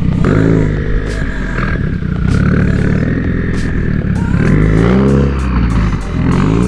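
Car engine revving, its pitch rising and falling a few times, over background music with a steady beat.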